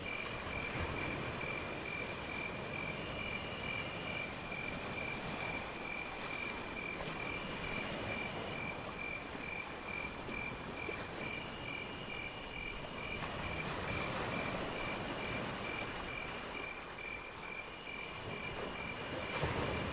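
Night insects calling: a very high trill in long phrases broken by short pauses, with a lower chirp pulsing evenly underneath, over a steady low rumble of background noise.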